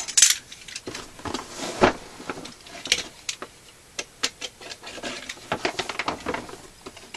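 Cardboard firework box being handled: irregular taps, clicks and rubbing as it is turned over.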